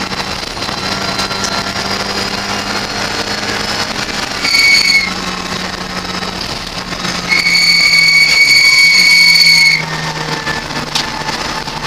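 Ford Fiesta race car's engine running steadily, heard from inside the cockpit, its note dropping slightly as the car slows for a bend. Over it, the tyres squeal loudly twice as the car corners, briefly at first and then for a couple of seconds, at a steady high pitch.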